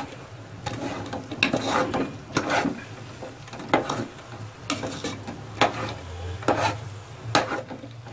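Long metal spoon scraping and stirring thick chana dal halwa in a large aluminium pot, about one stroke a second.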